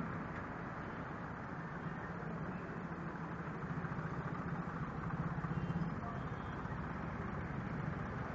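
Hydraulic power pack of a wedge-type road blocker running with a steady motor-and-pump hum as the barrier plate is raised and lowered; the hum grows louder midway.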